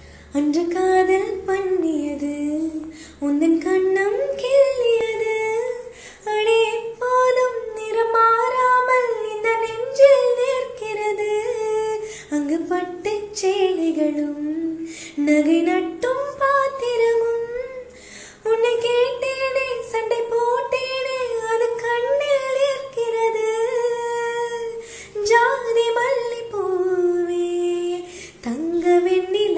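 A woman singing a slow melody in long held notes, one phrase after another with short breaths between, with no instruments.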